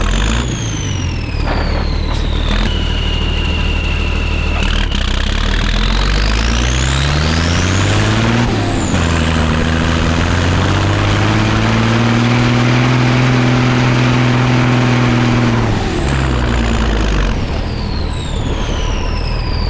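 Military 5-ton 6x6 truck's multifuel diesel engine working under load. It revs up through a gear, drops briefly about eight seconds in, revs up again and holds steady, then falls off near the end. A high whine rises and falls along with the engine.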